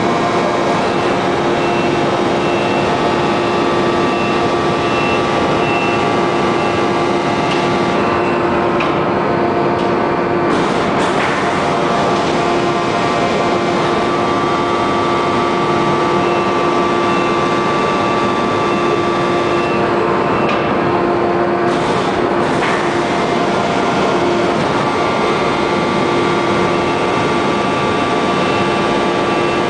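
Hydraulic 1250-ton open-die forging press and its pump unit running with a loud, steady machine hum. Twice, about nine and twenty seconds in, the hiss briefly drops away and a sharp click follows, in a roughly twelve-second cycle.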